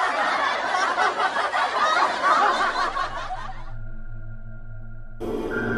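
Laughter cackling over the ghost scene, which cuts off about three and a half seconds in. A steady droning music follows, and it grows fuller shortly before the end.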